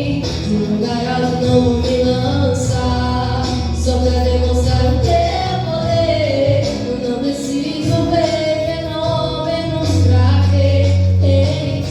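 A gospel worship song sung by female voices with instrumental accompaniment: long held bass notes under the singing, with percussion strikes.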